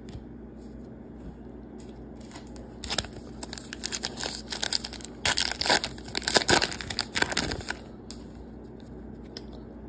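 A 2024 Topps Heritage baseball card pack wrapper being torn open and crinkled by hand, in irregular crackly bursts from about 3 to 8 seconds in, loudest in the middle.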